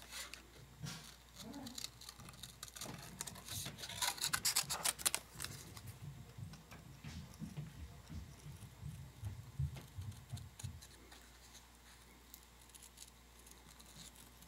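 Scissors snipping through kraft paper, with a quick run of snips about four seconds in and scattered single cuts and paper handling around them.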